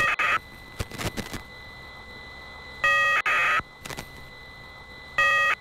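Sci-fi computer interface sound effects: short electronic bleeps, one near the start, two in quick succession about three seconds in and one near the end, over a faint steady high whine, with a few soft clicks in between.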